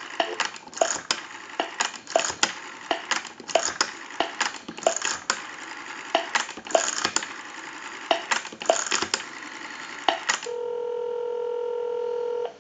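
A European rotary desk telephone's dial being dialed over a live line, its pulses heard as groups of sharp clicks, one group per digit, for about ten seconds. Near the end the clicks give way to a steady ringback tone on the line for about two seconds.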